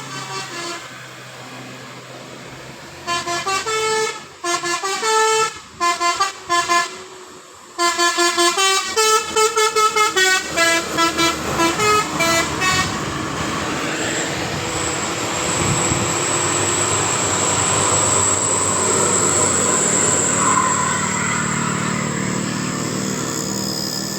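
Bus telolet basuri musical horn playing a quick tune of short stepping notes, starting about three seconds in, with a brief break around the middle. For the last ten seconds a steady rushing noise takes over.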